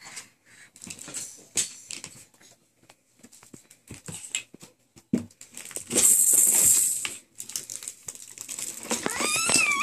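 Plastic toys and a plastic laundry basket knocking and clattering as small children play, with a loud rattling scrape for about a second midway. Near the end a young child starts a high, wavering cry.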